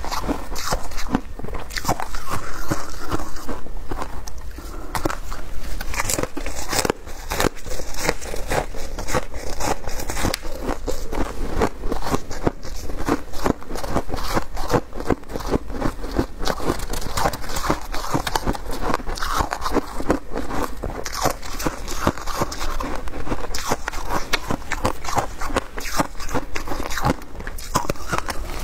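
Close-miked crunching and crackling of shaved ice: gloved hands scooping and squeezing it in the tray, and bites and chewing of packed ice, a dense run of crisp crunches.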